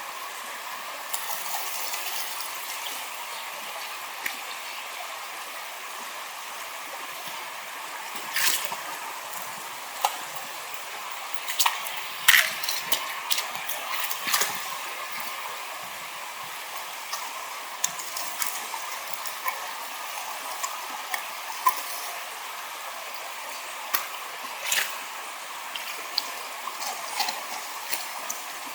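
Water running steadily through a sluice box, with scattered sharp knocks and splashes now and then, loudest about halfway through.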